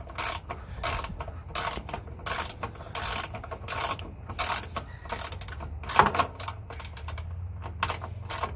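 Socket ratchet clicking in quick repeated strokes as a bolt is tightened, with a louder knock about six seconds in, over a low steady hum.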